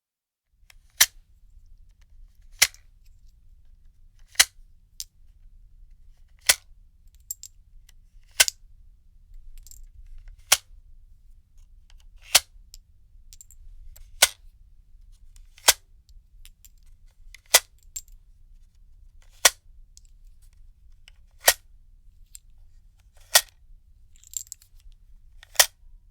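A gun magazine being unloaded: about fourteen sharp metallic clicks, one every two seconds or so, as cartridges are pushed out one by one. A faint low rumble runs underneath.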